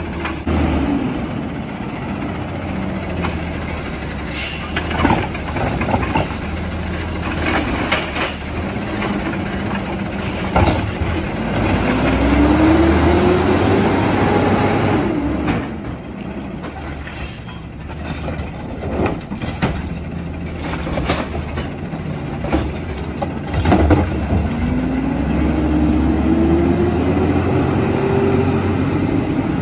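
CNG Peterbilt 320 garbage truck with an automated side-loading arm working and driving off. The engine revs up twice, about a third of the way in and again near the end. Scattered clanks and knocks come from the arm and the body.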